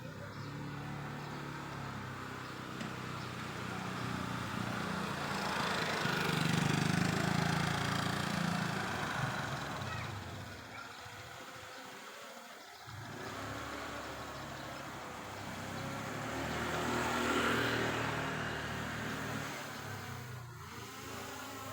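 Engine noise that rises and fades twice, loudest about a third of the way in and again near three quarters, like motor vehicles passing.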